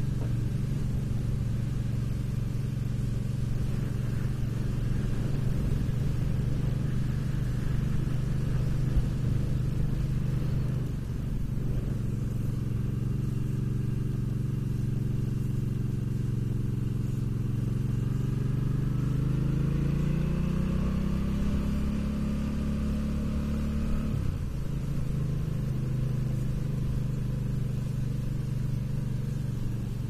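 Motorcycle engine running under way, heard from the rider's seat. Its note climbs steadily about two-thirds of the way through, then drops suddenly a couple of seconds later.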